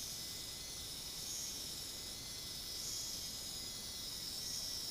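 Small WPL RC crawler winch's geared electric motor running faintly and steadily, reeling the line back in.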